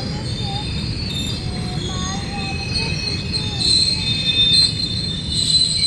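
Loaded open freight wagons rolling past: a steady rumble of wheels on the track with high-pitched wheel squeal over it, swelling louder about two-thirds of the way through and again near the end.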